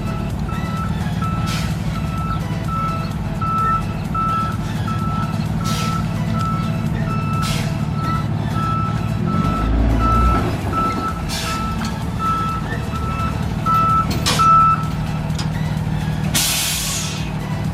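Truck's reversing alarm beeping steadily, about one and a half beeps a second, over the running engine; the beeping stops near the end and a short, loud burst of air hiss follows, as from air brakes being set.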